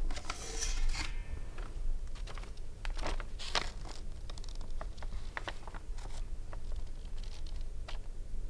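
Sheets of paper rustling and crackling as they are picked up and handled: a loud rustle at the start, another about three seconds in, then scattered small crackles.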